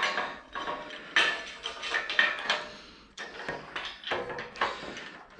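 Irregular metallic clinks and knocks, about one or two a second, as a bracket and its bolts are handled and fitted to the table frame.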